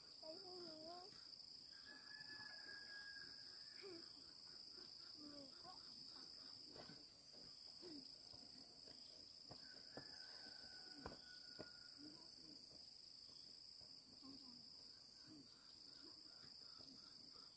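Faint, steady, high-pitched drone of insects calling. Two faint held whistled notes sound briefly, once early and once around the middle, and a few faint clicks come near the middle.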